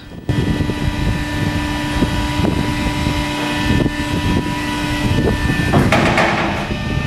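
The steriliser's robotic drawer loader running as it pulls the drawer of treated waste out of the autoclave: a steady mechanical hum with several metallic knocks, and a loud rushing, hissing noise about six seconds in.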